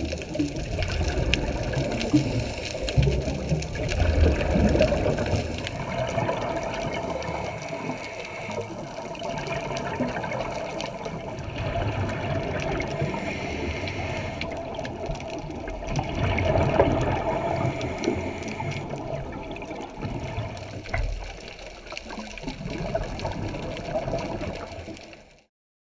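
Muffled underwater noise picked up through a GoPro's waterproof housing, with irregular low surges of scuba divers' exhaled bubbles rising from their regulators. It cuts off abruptly near the end.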